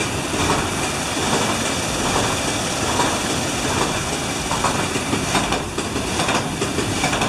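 Water-powered sawmill running: a steady, dense noise of water and working machinery, with faint irregular knocks from the saw mechanism.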